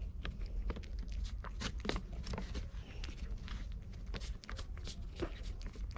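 Cat eating from an opened food pouch close to the microphone: a quick, irregular run of wet chewing and licking clicks, over a low steady rumble.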